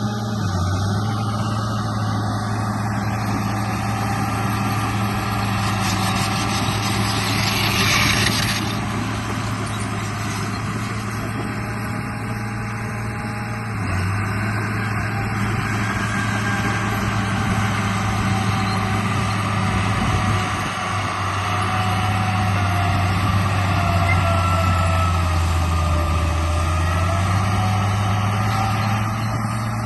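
Remote-control bulldozer running: a steady low engine-like drone with a higher whine that wavers in pitch. A hiss rises and cuts off about six to eight seconds in.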